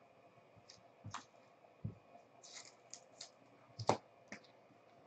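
Trading cards being handled: a series of light clicks and taps as a card is moved and set down on a stack of cards on the box, the loudest a knock just before four seconds in.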